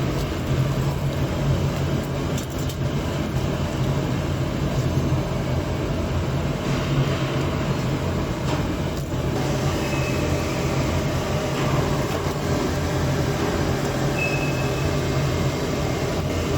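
Industrial machinery running steadily in a workshop: a constant low hum under an even mechanical noise, with two brief faint high squeaks about ten and fourteen seconds in.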